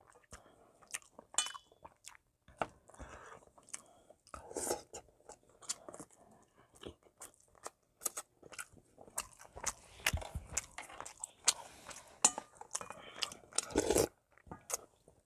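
Close-up eating sounds of a man eating oyster soup: chewing and mouth smacks in many short sharp clicks, with a louder sip from a wooden spoon near the end.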